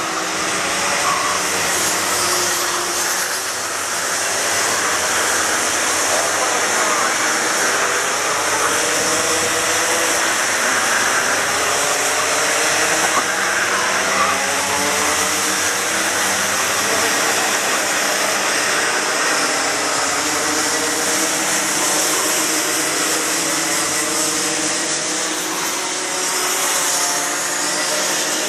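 A pack of racing karts' two-stroke engines buzzing as they pass, many overlapping engine notes rising and falling as the karts brake and accelerate through the corners.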